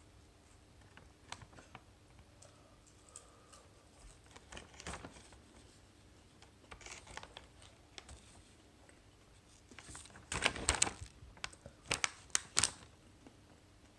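Irregular light clicks and taps, a few at a time at first, then a quick flurry about ten seconds in and several sharper ones shortly after.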